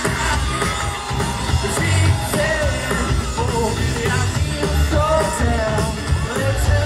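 A live rock band playing, with a lead singer and a strong pulsing bass.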